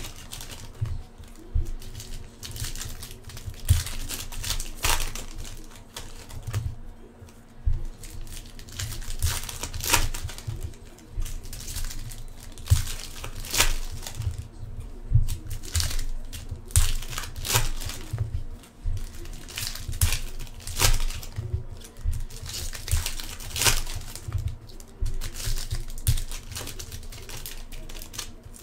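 Foil trading-card pack wrappers crinkling and tearing as packs are ripped open by hand, in irregular crackles throughout.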